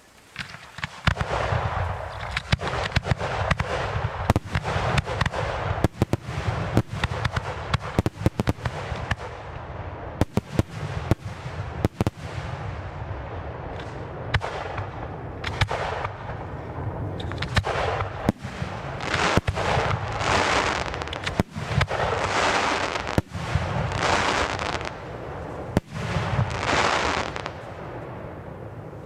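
Fireworks going off in quick succession, starting about a second in: many sharp bangs over steady crackling, with several louder waves of crackle near the end.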